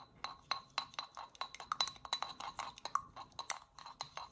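A paintbrush clinking against the inside of a small glass jar while stirring paint, about three or four light clinks a second, each with a brief glassy ring.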